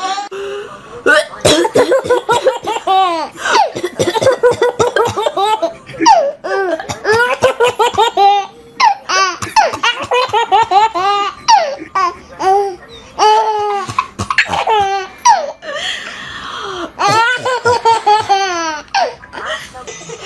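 A baby laughing hard in repeated runs of short, high-pitched laughs, with brief pauses for breath between the runs.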